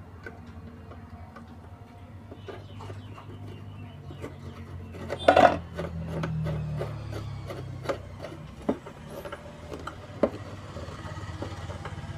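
Screwdriver driving and tightening the screw that holds an IC to its heat sink inside a metal cable TV node housing: small scrapes and clicks, with one sharp knock about five seconds in and a few lighter clicks later. A low steady hum runs underneath.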